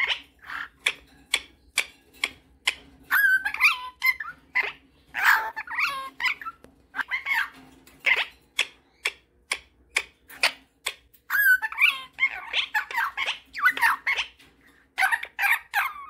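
Superb parrot calling close up: a string of short sharp chirps, two or three a second, mixed with warbling, chattering phrases that rise and fall in pitch.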